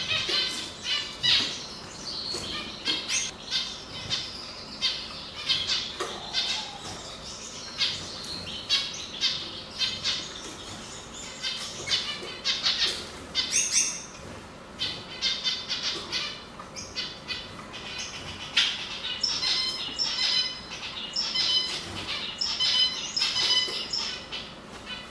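Male canary singing: a long, continuous run of rapid chirps and trills with repeated ringing phrases near the end. Full song like this is the usual sign that a canary is a male.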